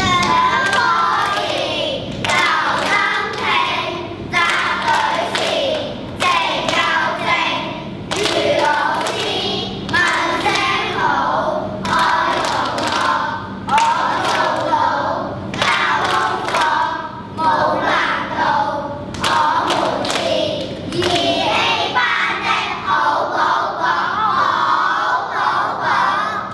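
A class of young children chanting their class rules in unison in Chinese, in short rhythmic phrases, punctuated by sharp hand claps.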